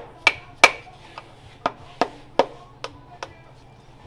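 A hammer striking metal in a string of about eight sharp blows with a slight ring, coming quickly at first and then more slowly, while a KA24E engine is being taken apart.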